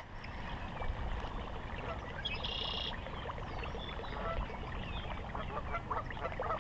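Wind rumbling on the microphone, with faint scattered ticks and a short bird call about two and a half seconds in.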